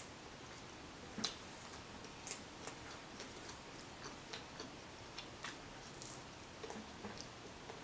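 Faint, irregular clicks and small smacks of eating and chewing close to the microphone.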